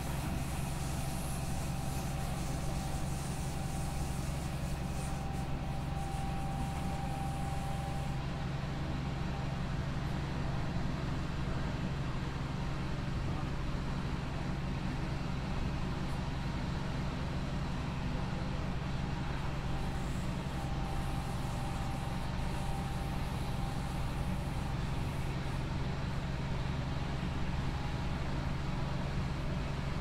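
Interior noise at the front of a Deutsche Bahn train: a steady low drone. A faint higher whine comes in twice, and a hiss comes and goes in the first eight seconds and again from about twenty seconds in.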